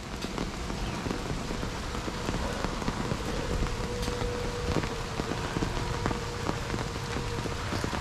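Steady rain falling, with many separate drops ticking sharply on an umbrella held close overhead.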